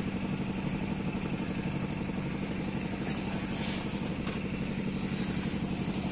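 Motorcycle engine running at low revs, a steady, even pulsing hum.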